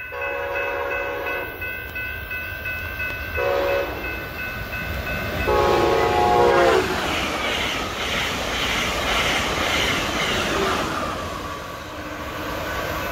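Horn of an Amtrak Siemens SC-44 Charger locomotive sounding a long blast, a short blast and a long blast as the passenger train approaches a grade crossing at about 111 mph, with the crossing bell ringing steadily. The train then rushes past with a loud noise of wheels and wind that fades as it goes.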